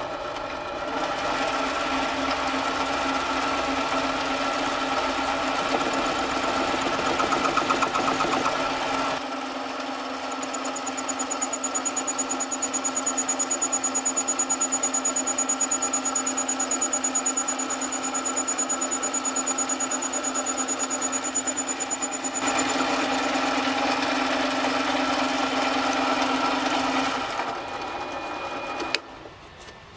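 Small benchtop metal lathe running steadily with a DMLS titanium part spinning in its three-jaw chuck during a boring cut. The steady tone changes character twice, about a third and about three-quarters of the way in, and the lathe shuts off about a second before the end.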